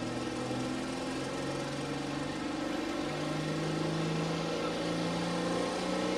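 Dodge Ram pro stock diesel pulling truck idling while hooked to the sled before its pull, the engine note stepping up slightly about three seconds in.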